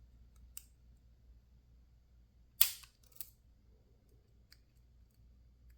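Lock picks and tension tool working a PacLock 410 Pro padlock, making sharp metallic clicks: a few faint ticks, one loud click about two and a half seconds in, and a smaller one just after.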